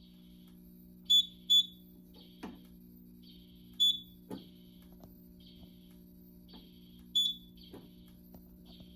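Short, high-pitched electronic beeps from a Simplex fire alarm demo system: a quick pair, then two single beeps a few seconds apart, each followed by a soft click, over a steady electrical hum and a faint hiss that repeats about once a second.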